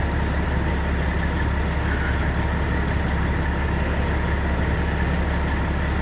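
Fire truck engine idling steadily: a constant low hum with an even hiss above it.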